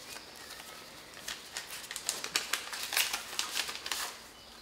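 Paper rustling in short, irregular crackles: a paper ballot being taken out of its envelope and unfolded during a hand count of votes.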